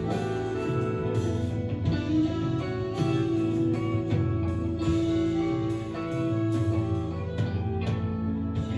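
Live band playing an instrumental passage on electric guitars, fiddle, electric bass and drums, with one long held note in the middle, heard through a television's speakers.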